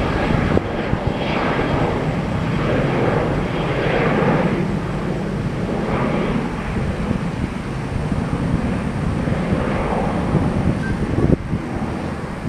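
Jet roar of a climbing Southwest Airlines Boeing 737's twin CFM56 turbofan engines, steady and rough, easing slightly near the end. A single sharp click comes about eleven seconds in.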